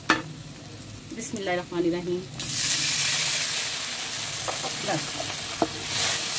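Onions frying quietly in hot desi ghee in an aluminium kadhai, then water poured in about two and a half seconds in sets off a sudden loud, hissing sizzle that carries on as the water boils up in the fat. A single knock, likely the wooden spoon on the pan, comes right at the start.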